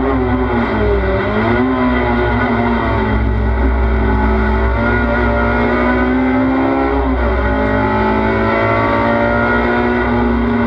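A race car's engine heard from inside the cabin under race driving. Its note dips about a second in, then climbs steadily under acceleration, drops sharply about seven seconds in, and climbs again, over a constant low rumble.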